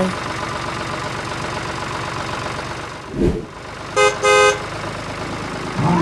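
Steady engine-like running of a model walk-behind tractor, dipping briefly about three seconds in, followed by two short horn beeps about four seconds in.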